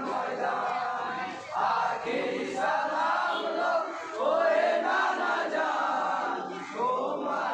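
A group of men chanting a Bengali marsiya, a mourning elegy for Imam Hussain, together in loud phrases of a second or two with short breaks between them.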